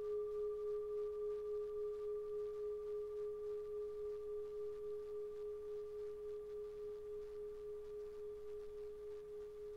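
A sustained meditation tone of the singing-bowl kind: one steady mid-pitched tone with a faint higher overtone, gently pulsing and slowly fading.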